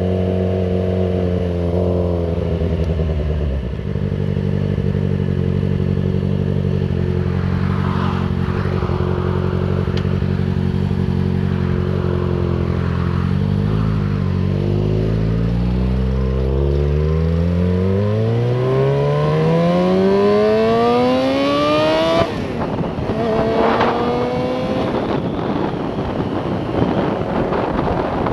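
Yamaha FZ6R's 600 cc inline-four engine running while ridden: it holds a steady note for several seconds, then its pitch climbs steadily for about ten seconds as the bike accelerates, breaks off sharply at a gear change, and climbs again.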